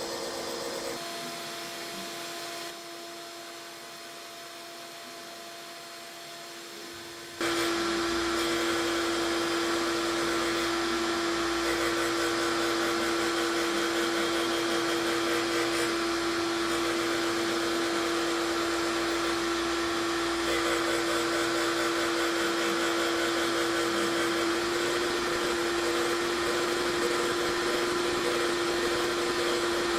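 Surface grinder running with a steady whine and rushing noise, which gets much louder about seven seconds in.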